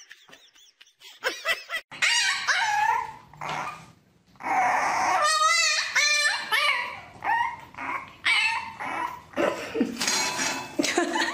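A puppy yipping and whining in a run of short, high-pitched calls that slide up and down, with a quick string of yelps partway through.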